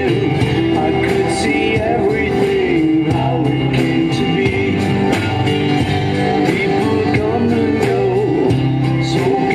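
Rock-style background music with guitar, a sung melody and a steady beat.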